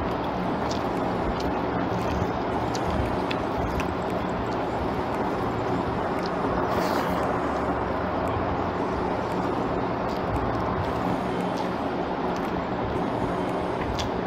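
Steady background noise, with faint clicks and smacks of a person eating rice with his fingers.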